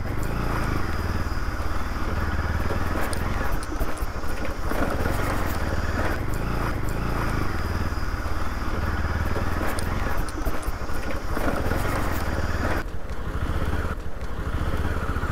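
Motorcycle running on the move, with steady engine and road noise and wind rumbling on the microphone.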